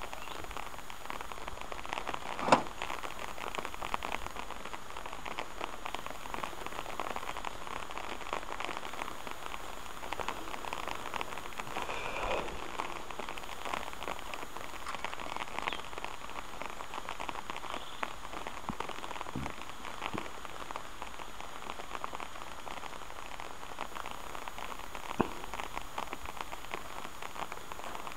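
Steady patter of rain, a dense run of small ticks, with a sharp click about two and a half seconds in and another near the end.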